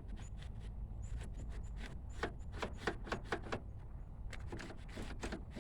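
Irregular light clicks and taps of plastic parts being handled and fitted: a replacement car interior door handle and its bezel. The clicks come in bunches, thickest a couple of seconds in and again near the end.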